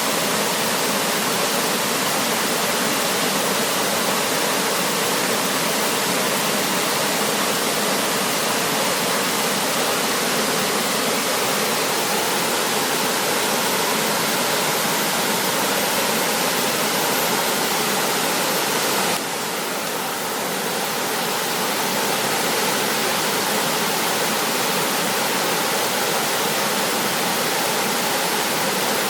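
Small river flowing swiftly, a steady dense rush of water. About two-thirds of the way through it briefly drops a little in level, then builds back.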